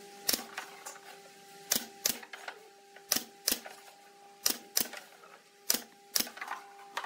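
Pneumatic brad nailer firing brads into a pine frame strip: sharp clacks, mostly in quick pairs about a second apart, about ten shots in all.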